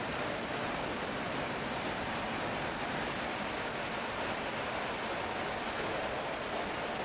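Steady rushing noise of airflow and turboprop engines heard inside the KC-130J's cargo hold as the rear cargo door opens in flight.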